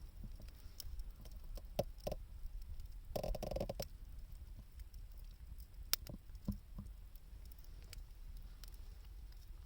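Wood fire burning: scattered sharp crackles and pops from the wood, with a brief denser burst of crackling a little after three seconds in, over a low steady rumble.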